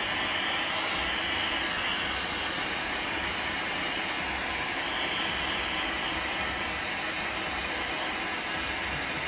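Express hot air gun Cat. No. 4600 running steadily, its fan blowing a constant airy rush.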